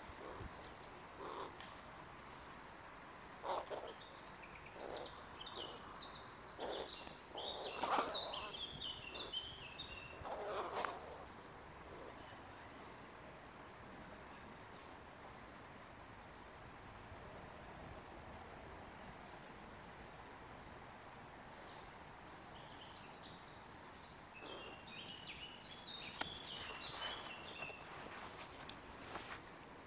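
Outdoor ambience with small songbirds chirping in short high notes, in one spell near the start and another near the end, and a few short soft rustles and knocks.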